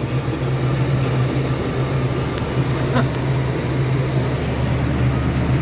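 Farm tractor engine running steadily while pulling a hay rake, a constant low drone with a faint click or two about halfway through.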